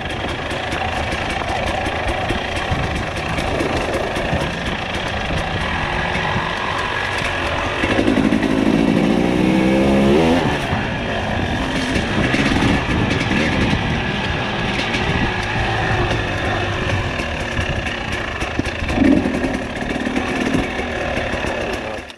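Two-stroke enduro dirt bike, a Husqvarna TE 300i, running under load along a trail, its revs rising and falling with the throttle. The clearest rises in pitch come about eight to ten seconds in and again near the end.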